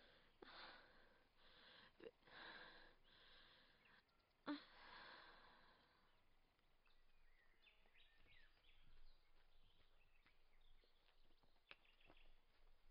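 A woman breathing heavily through pain in faint, ragged breaths and sighs, with a short pained gasp about four and a half seconds in. After that only faint outdoor ambience with scattered small ticks is left.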